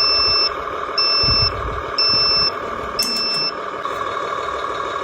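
Toy truck's electronic reversing beeps: four even beeps, about half a second each and one a second, over a steady electronic engine hum.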